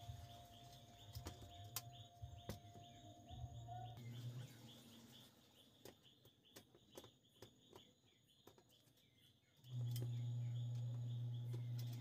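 A small electric screwdriver's motor hums steadily in two runs, about four seconds at the start and again from about ten seconds in, driving screws into a car stereo's sheet-metal case. Light metallic clicks of the screws and case being handled come in between.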